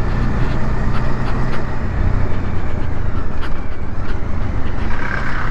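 Motorcycle engine running steadily at cruising speed, with loud wind and road rush over the microphone while riding.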